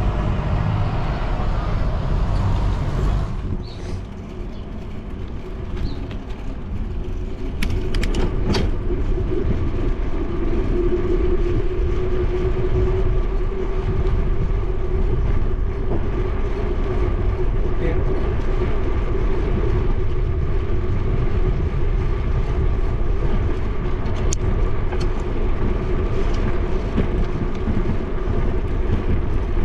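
A city bus passing close by for about the first three seconds, its engine and tyres loud. Then steady wind rumble and rolling noise from a bicycle riding along a paved cycle path, with a steady hum and a few light clicks.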